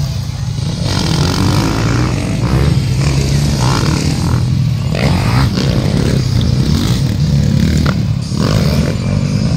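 Motocross bikes racing on a dirt track, their engines running loud and continuous.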